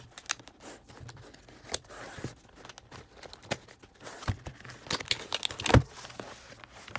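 Keyboard packaging being opened by hand: cardboard and plastic rustling and crinkling, with scattered small clicks and a thump a little before the end.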